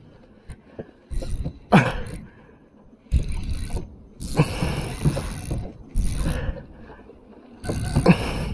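Size-3000 spinning reel cranked in several short bursts of half a second to a second, its gears grinding while a big fish is reeled in. Two short sounds sliding down in pitch come about two seconds in and near the end.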